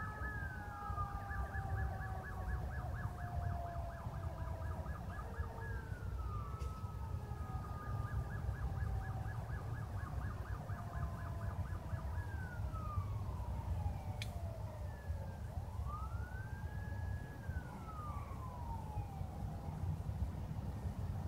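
Electronic emergency-vehicle sirens cycling through their patterns: a rapid warbling yelp alternates with long falling sweeps, and near the end one sweep rises, holds and falls. Underneath runs a steady low rumble, with a short click about fourteen seconds in.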